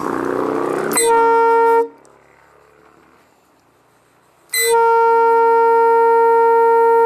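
Nathan P3 air chimes train horn blown with compressed air from a hand-held air nozzle: a rush of air hiss, then a short blast about a second in and a longer blast of about three seconds near the end, each one steady, unwavering tone. Only some of its trumpets sound; the owner says two of them aren't working, probably clogged up with bugs.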